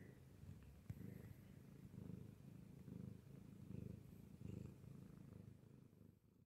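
A domestic cat purring faintly close to the microphone, in slow low swells about once a second, with a soft click about a second in.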